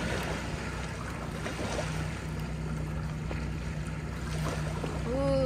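Wind on the microphone over a steady low hum, with faint light scrapes and clicks of a metal fork lifting cooked fish meat off a hot stone slab.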